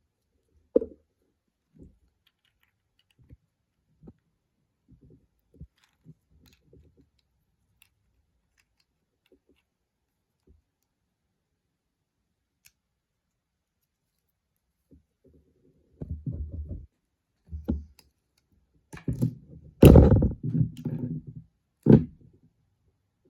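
Small 3D-printed plastic model parts being handled and fitted together: scattered light clicks and taps, then a busier run of knocks and rattling near the end.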